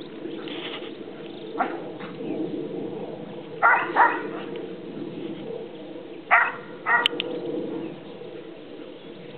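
Australian Shepherd barking in short, sharp barks: a single bark, then two pairs of barks a couple of seconds apart.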